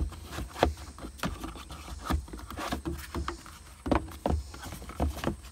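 Hard plastic cup holder insert being worked into a Jeep TJ center console: a string of irregular clicks and knocks of plastic on plastic, over a low rumble.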